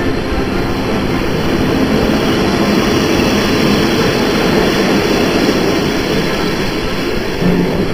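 PKP Intercity passenger coaches rolling past at close range, making a steady rumble of wheels on rail that does not let up.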